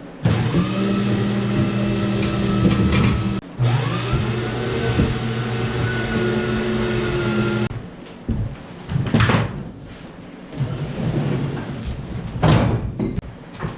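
A motor runs in two stretches. Each starts with a short rising whine that settles into a steady hum, and it stops about eight seconds in. Two short whooshing sweeps follow.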